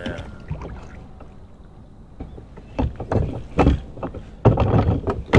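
Small boat being rowed: oars knocking and creaking in their oarlocks as they work the water. A few scattered knocks about halfway through, then a denser run of thumps near the end.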